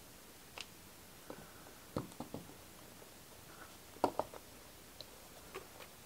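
Faint, scattered clicks and taps of small parts of a vintage Philco power switch being handled and fitted together on a pin, with a quick cluster about two seconds in and the loudest clicks just after four seconds.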